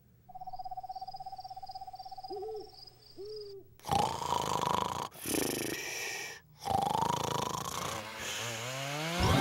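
Cartoon night sounds: a steady whistling tone with two short owl hoots. From about four seconds in, a crow character snores loudly in three long breaths. Near the end a rising mechanical whine begins.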